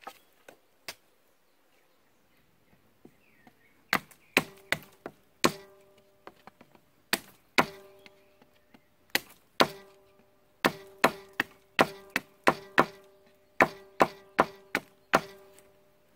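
Small hatchet chopping at the end of a wooden stake to point it: about twenty sharp blows in quick runs of several strikes, starting about four seconds in, each with a short ringing tone.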